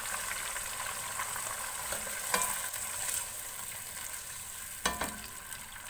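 Beef with ginger-garlic paste and yogurt frying in hot ghee in a large pot, a steady sizzle as it is stirred. A spoon clinks sharply against the pot twice, about two and a half and five seconds in.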